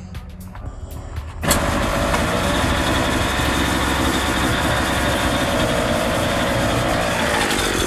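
Partner 350S chainsaw's two-stroke engine: quiet with a few light clicks, then about a second and a half in it comes in suddenly and runs loud and steady, with the carburettor being set for idle.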